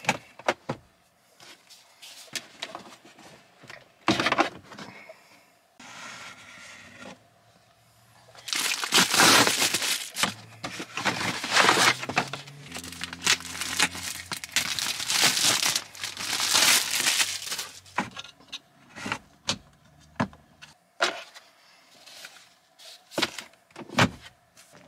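Clicks and knocks of a car's plastic glove box being opened and handled, with long stretches of scraping and rustling as a cardboard box is handled in front of the dash, loudest in the middle.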